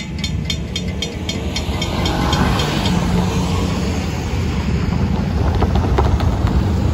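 Railroad crossing bells ringing at about four strokes a second, fading out about a second and a half in as the gates go up. Cars and pickup trucks then drive over the crossing, a steady low rumble of tyres and engines that grows louder.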